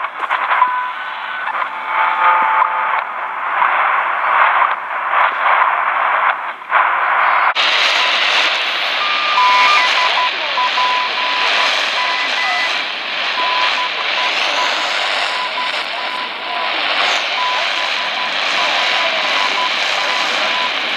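Shortwave time-signal broadcast on 15.000 MHz heard through a portable radio's speaker: steady static and hiss with fading, and a faint 1 kHz tone in short broken pulses. About a third of the way in, the sound switches from the XHDATA D-219's duller, narrower sound to the HanRongDa HRD-700's brighter, hissier sound.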